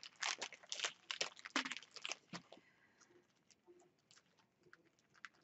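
Small plastic bags of diamond painting drills and beads being handled: a quick run of faint crinkles and clicks that stops about two and a half seconds in.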